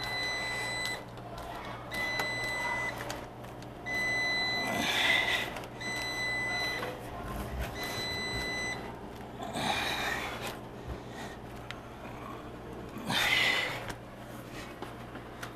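An electronic beeper sounds five times, each beep a steady high tone about a second long and repeating every two seconds, then stops. A few short scuffing noises from hands working the door are mixed in.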